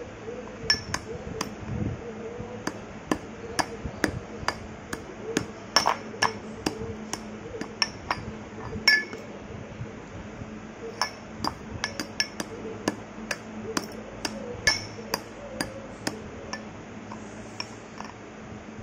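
Stone pestle pounding broken slate pencils in a stone mortar: a run of sharp, irregular crunching knocks, about two or three a second, thinning out near the end.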